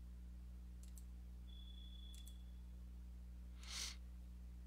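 A few faint computer mouse clicks over a steady low electrical hum, with a short breath about four seconds in.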